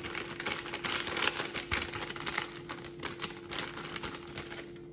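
Rapid, irregular clicking and scraping of a utensil against a container as coconut milk powder is stirred into water by hand, loudest about a second in and easing toward the end.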